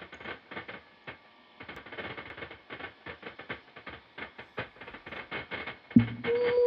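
A dense, irregular patter of small taps and clicks. About six seconds in, a sharp thump, and then a held, wavering musical tone begins.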